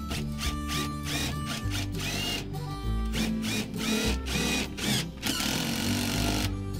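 Cordless drill run in short bursts that spin up and down, then a longer run of about a second near the end, over background country music.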